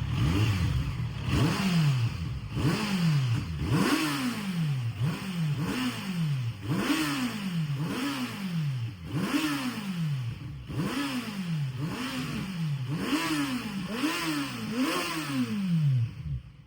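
A 2025 Kawasaki Z900's inline-four engine, fitted with an Arrow aftermarket exhaust, being blipped on the throttle over and over, about once a second. Each blip rises quickly and falls back toward idle. The engine sound cuts off suddenly near the end.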